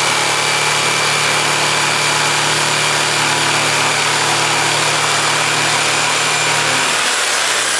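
Corded jigsaw with a thin blade cutting a curve through an inch-thick pine decking board, its motor running steadily under the blade's cutting noise. The low hum drops away near the end as the cut finishes.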